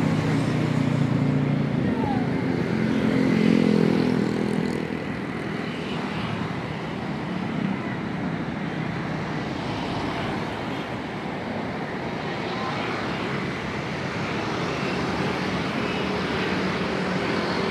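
City street traffic: a vehicle engine passes close by in the first few seconds, loudest around three to four seconds in, then a steady wash of traffic.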